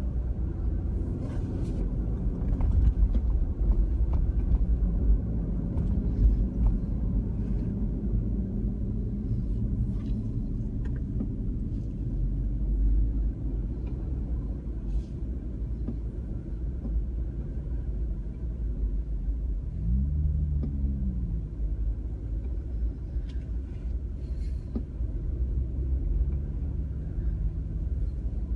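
A car driving along a road: a steady deep rumble of engine and tyres. About twenty seconds in, the engine note rises briefly as it speeds up.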